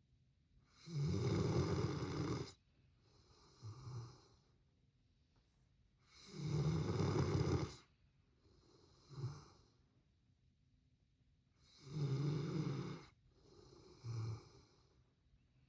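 Labrador snoring while asleep: three long, loud snores about every five to six seconds, each followed by a shorter, softer snore.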